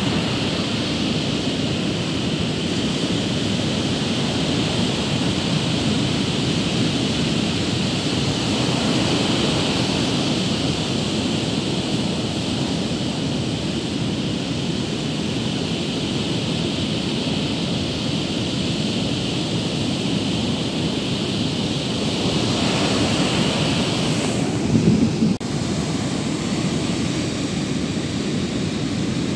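Surf breaking on a sandy beach, a steady rushing wash, with wind buffeting the microphone. Near the end a brief louder low rumble cuts off sharply.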